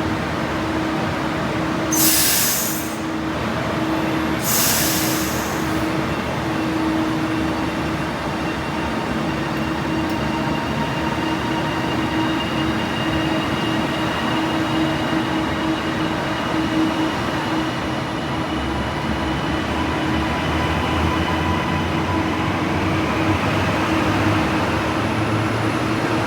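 A train at a station, running with a steady hum and a pulsing tone, with two short, loud hisses of air about two and four and a half seconds in.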